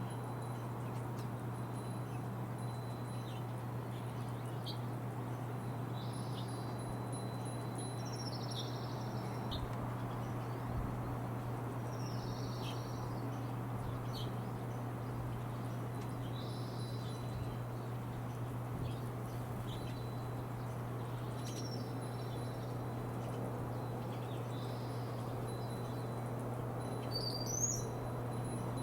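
Small songbirds giving short, high chirps every few seconds, over a steady low hum.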